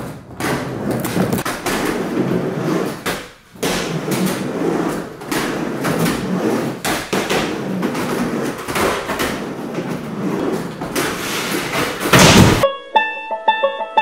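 Skateboard wheels rolling back and forth on a plywood mini half-pipe, with knocks and thuds from the board on the ramp and a loud bang near the end. Music with plucked notes starts just after.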